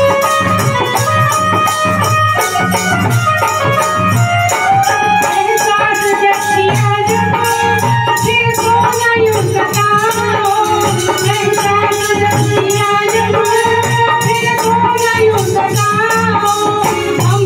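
Live devotional bhajan music: a woman singing long held notes over percussion that keeps a steady beat.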